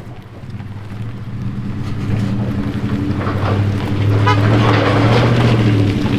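A motor vehicle's engine running with a steady low hum, getting louder over the first four seconds and then holding level.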